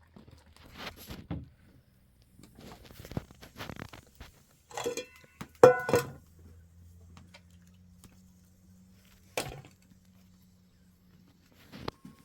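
Objects being handled: scattered knocks and thuds, with a few sharp ringing clinks, like metal or glass struck together, about five to six seconds in.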